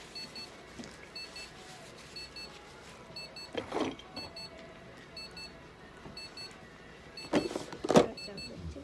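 Electronic beeping from a device, short two-tone pips repeating steadily about once a second. Two brief louder sounds break in, about four seconds in and near the end, the second ending in a sharp click.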